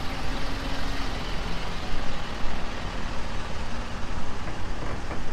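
Steady low rumble of a large road vehicle's engine running, over general street noise.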